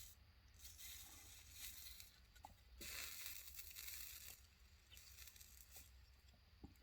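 Faint, intermittent hissing in several short spells of about a second each, from a soldering iron melting solder and soldering acid onto a battery cell connection, over a low steady hum.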